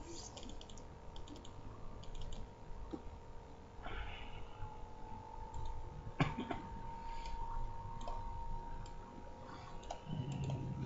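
Computer mouse clicking now and then, a handful of sharp clicks with one louder click about six seconds in, over a faint steady electrical hum.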